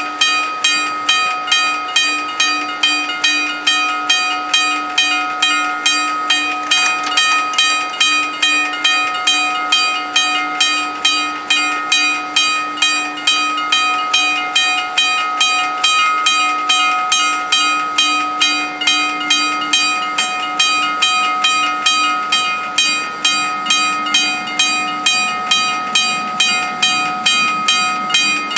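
Italian level-crossing warning bells striking steadily at about two strikes a second, each strike ringing on, as the crossing closes for an approaching train. A low hum underneath stops near the end.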